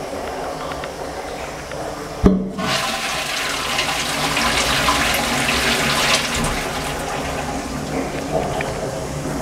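Flush of a wall-hung Twyford Sola rimless toilet with a concealed cistern. A sharp click about two seconds in, then the loud rush of flush water into the pan for about seven seconds.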